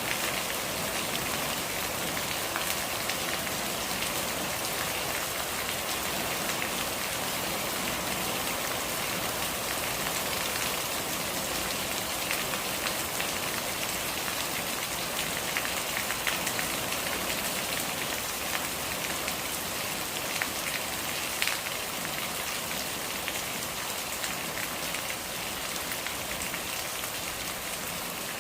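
Steady rain falling on a surface, a dense even hiss with scattered drop ticks.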